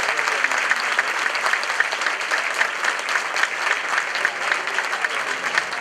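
Theatre audience applauding steadily after a song, a dense patter of many hands clapping.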